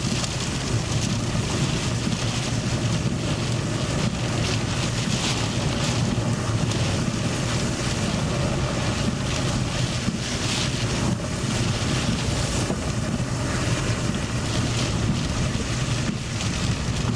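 Steady, loud storm wind and rain noise heard from inside a moving vehicle, with a low road and engine rumble underneath and gusty flutter on the microphone.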